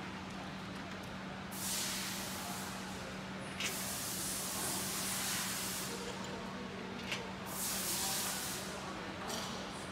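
Protective plastic film being peeled off a laser cutter's lid, giving four long rasping hisses, over a steady low hum.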